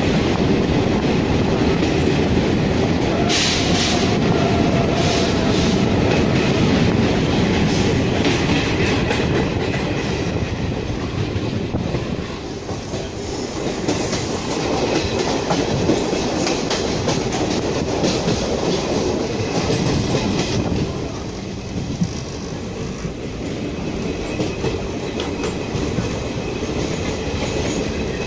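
Passenger train running, heard from inside the coach: a steady rumble of wheels on rails with rapid clickety-clack over the rail joints. It is louder for about the first twelve seconds, while the train is in a tunnel, then drops back a little.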